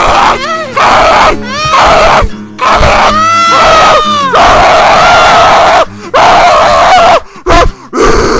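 A voice screaming and shrieking in loud bursts with short breaks between them, the pitch bending up and down.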